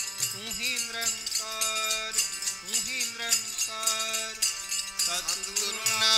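Harmonium and tabla playing devotional kirtan music: held harmonium notes over a steady run of tabla strokes, with a few short sliding notes.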